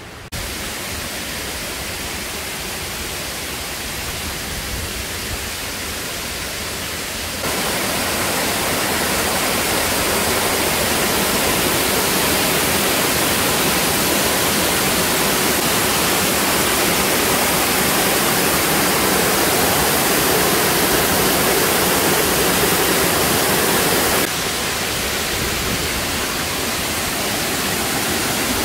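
Steady rush of a mountain waterfall and stream cascading over rocks. It steps up abruptly about seven seconds in and drops back a little near the end.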